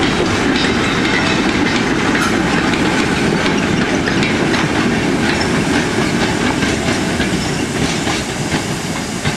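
Four-wheeled goods wagons of a steam-hauled freight train rolling past close by, their wheels clattering over the rail joints over a steady rumble. The sound eases off a little near the end as the brake van goes by.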